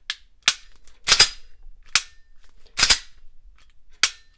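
Ruger SR9C 9mm pistol being dry-fired: six sharp metallic clicks of the trigger and action, two of them longer and louder.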